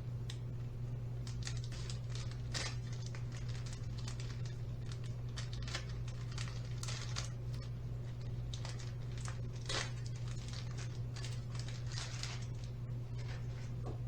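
Rustling and crinkling of a compression-fit undershirt being pulled on and handled, in short irregular scrapes, over a steady low hum.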